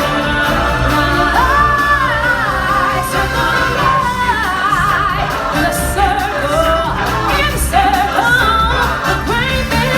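Live stage-musical performance: singers with a choir-like backing over a steady, loud band track with a strong bass beat.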